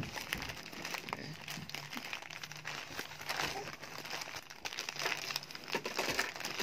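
Plastic shipping mailer bag crinkling and rustling with small, scattered crackles as fingers pick at it and pull it open.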